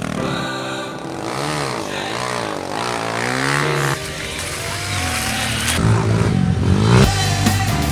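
Off-road vehicle engine revving up and down several times, the pitch rising and falling in quick swings, then running on at a steadier pitch; music comes in about seven seconds in.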